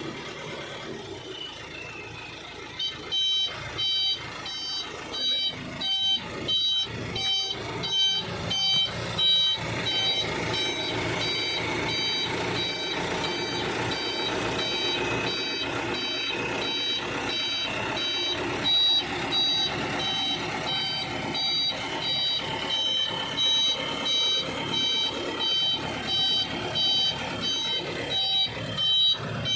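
A truck's reversing alarm beeping over and over, about one to one and a half beeps a second, starting a few seconds in, over a running truck engine and drivetrain.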